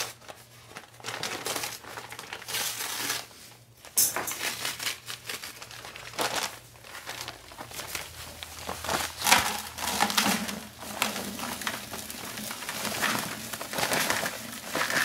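A heavy multi-wall paper sack of concrete mix being torn open and handled, its paper crinkling and rustling in irregular bursts, with a sharp click about four seconds in. Near the end the dry mix pours from the sack into a plastic bucket.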